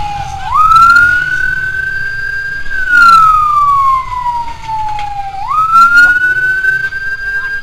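Emergency siren wailing on a fire-response escort motorcycle. The tone glides slowly down, leaps sharply back up and climbs again, twice, over street and engine noise.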